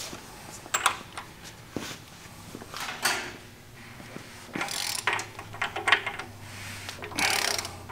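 Irregular metallic clicks and clanks of hand tools on a bare Mopar 440 big-block, with ratchet-like strokes, as the crankshaft is turned over by hand to bring a piston up toward top dead centre.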